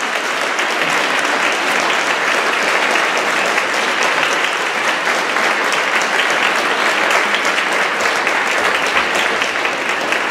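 Audience applauding, a dense and steady clapping that runs on without a break.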